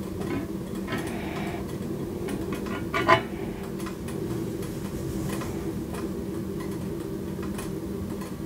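Aluminium wax-pouring pitcher clinking once against the rim of a glass candle jar about three seconds in, as melted soy wax is poured. Under it runs a steady low hum with light, irregular ticking.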